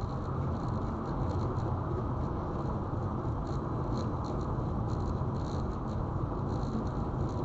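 Steady road and tyre noise of a car being driven, heard from inside the cabin, with faint light ticks over it.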